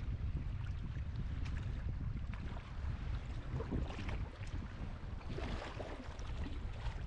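Wind rumbling on the microphone while kayaking on a river, with light water splashes from the paddles now and then.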